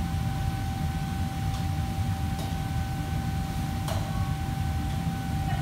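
Steady low rumble of commercial kitchen machinery with a constant high hum over it, and three light clicks at about one and a half, two and a half and four seconds in.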